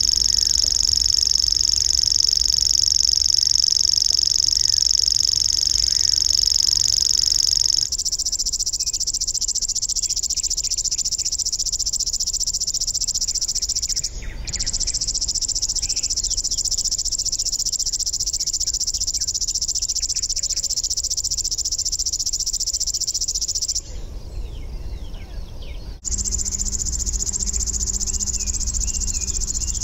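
Locustella warblers reeling: a continuous high, insect-like trill held without a break, first from a streaked grasshopper warbler, then, after cuts, from plainer relatives. The trill breaks off at each cut, with a gap of about two seconds near the end.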